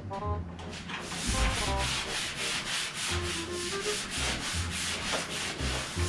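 Sanding the steel body of a 1969 Dodge Charger down to bare metal: quick, regular rasping strokes, several a second, starting about a second in.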